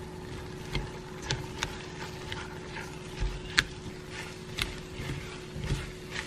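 Silicone spatula stirring and scraping rice as it fries in butter in a cast iron pot, heard as irregular soft clicks and scrapes over a faint steady hum.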